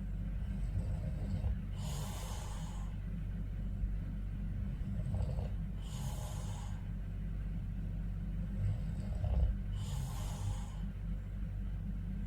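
A man snoring in his sleep: slow breaths about every four seconds, each with a low rattling snore and an airy, hissing breath, three cycles in all.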